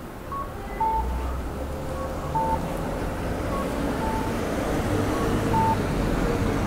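Japanese pedestrian crossing signal sounding its two-tone cuckoo-style guidance chirps while the walk light is green: a short high tone, then a lower one, the pair repeating about every one and a half seconds. A passing vehicle rumbles low underneath.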